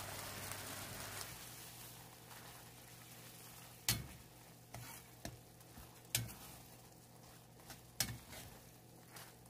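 Metal ladle stirring chunks of textured soy protein through red curry paste simmering in coconut cream in a metal pan, with a faint sizzle. There are sharp knocks of the ladle against the pan about four, six and eight seconds in.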